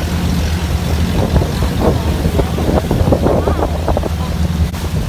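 Motorised outrigger boat's engine running at a steady low drone while under way. Voices are heard faintly in the middle.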